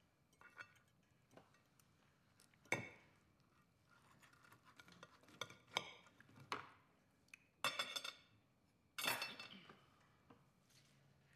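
Cutlery clinking and scraping against dinner plates: scattered short, sharp clinks of metal on china, several of them loud, over a quiet room.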